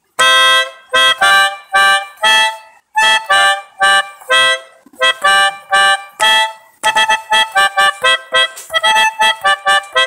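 Pianika (melodica) playing short blown chords in the manner of a 'basuri telolet' bus horn tune, about two a second, quickening into rapid short notes about seven seconds in.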